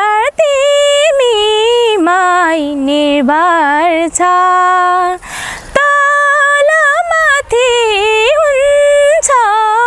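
A woman singing a Nepali song alone, with no accompaniment. She holds long notes with vibrato and ornamented turns, and pauses briefly for breath about five seconds in.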